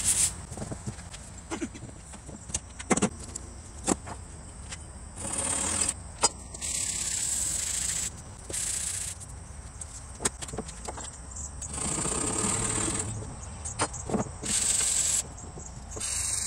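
A wooden frame being rubbed down by hand to clean off dried glue: several separate rasping strokes, each about a second long, with scattered sharp taps and clicks of the tool and hands against the wood between them.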